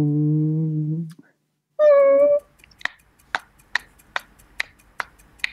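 A person imitating a car's turn-signal indicator: a held vocal tone, a shorter higher vocal note, then evenly spaced clicks, about two and a half a second, from about three seconds in.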